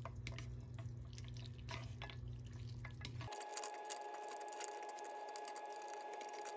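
Quiet household sounds: faint water and scattered light clicks and clinks over a steady hum, the background changing abruptly about halfway through.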